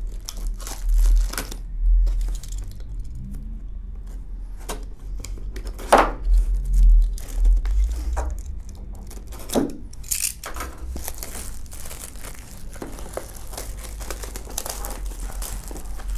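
Clear plastic shrink wrap on a cardboard box being cut with a utility knife and pulled off, the film crinkling and tearing. There are a few sharp clicks and knocks, the loudest about six and ten seconds in.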